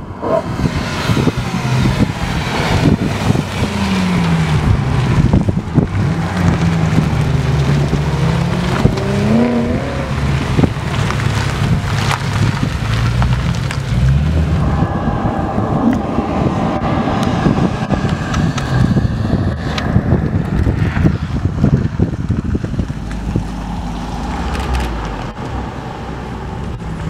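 Sports car engines accelerating hard past one after another, the engine note climbing and dropping with gear changes.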